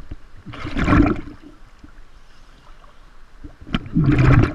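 Seawater sloshing and splashing around a camera bobbing at the surface, in two loud surges about three seconds apart, with a low wash of waves between them.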